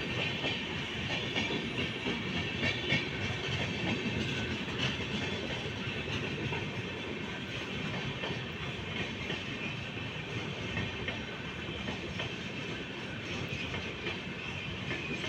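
Rajdhani Express LHB passenger coaches running along the track: steady wheel-on-rail noise, with a few sharp clicks from the wheels crossing rail joints in the first seconds.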